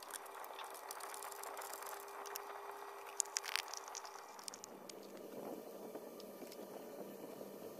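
Faint small metallic clicks and light handling noises as the generator is fitted back onto a Roddy pressure lantern, with a short cluster of sharper clicks about three to four seconds in.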